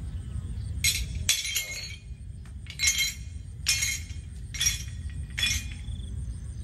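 A series of about six sharp, ringing crashes, roughly one a second, over a low steady rumble.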